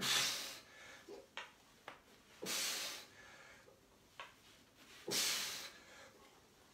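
A man breathing out forcefully three times, about every two and a half seconds, each breath about half a second long, from the effort of swinging his raised legs side to side in a core exercise. A few faint short clicks fall between the breaths.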